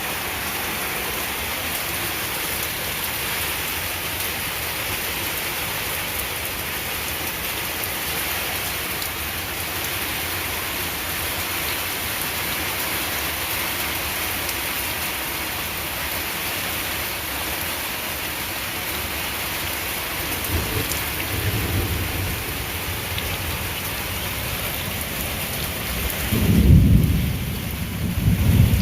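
Heavy rain falling steadily in a thunderstorm. Thunder rumbles low about twenty seconds in, and a louder roll of thunder comes near the end.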